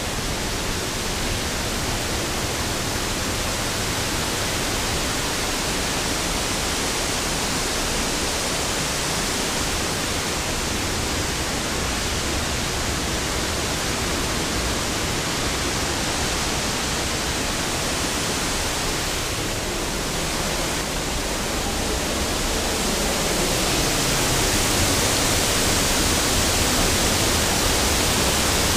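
Steady rushing of water at a hydroelectric plant, an even roar that grows a little louder about three-quarters of the way through.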